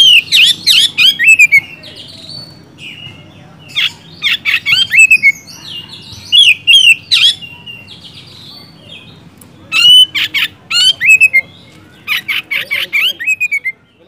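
Oriental magpie-robin singing loudly in full song: about five bursts of rapid, downward-sweeping whistles mixed with sharp clicking notes, a second or two apart.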